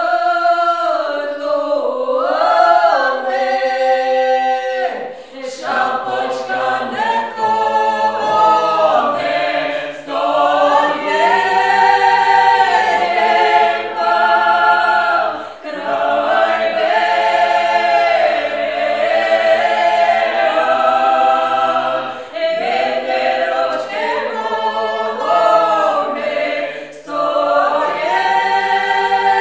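Small mixed ensemble of women's and men's voices singing a Ukrainian folk song a cappella in harmony, with lower voices joining about five seconds in.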